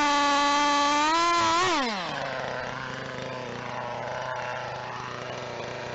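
Engine held at high revs, then throttled back to a steady idle about two seconds in.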